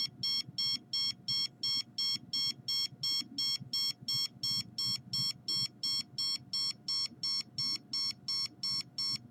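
Handheld microwave (RF) detector beeping rapidly and evenly, about four high-pitched beeps a second, its alarm for a strong reading while held against a computer screen.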